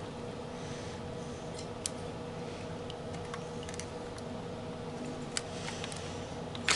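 Sparse light clicks and taps of a screwdriver working a screw on a throttle body, a second or two apart, with a quick cluster of clicks near the end, over a steady faint hum.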